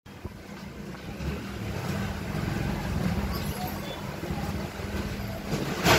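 Commercial potato peeler's 1 HP electric motor running steadily with a low hum, and a sharp knock right at the end.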